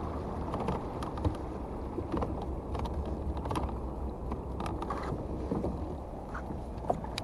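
Small fishing boat on the water: a steady low hum under a muffled rumble, with scattered light clicks and knocks.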